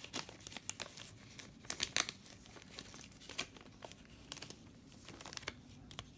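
Plastic wrapper of a pack of baseball cards crinkling and tearing as it is peeled open, with crackles thick for the first couple of seconds and then sparser as the cards are handled.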